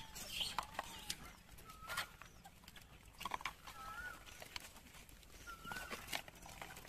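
Animal calls: short, high, arching calls repeated a handful of times, with scattered faint clicks and knocks between them.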